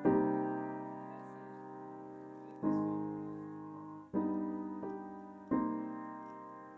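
Background music: slow piano chords, a new chord struck about every one and a half to two and a half seconds and left to fade.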